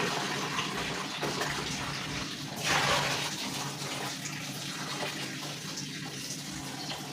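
Kitchen tap running water into a container, filling it, with a louder gush about two and a half seconds in.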